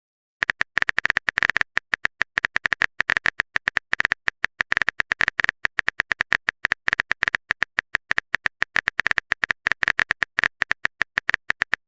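Typing sound effect: rapid, irregular keyboard clicks, about ten a second, starting about half a second in.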